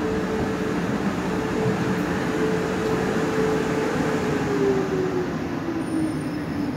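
South Western Railway Class 450 Desiro electric train running along the platform road with wheel and track rumble. Its traction motors give a whine that holds steady, then drops in pitch about two-thirds of the way through.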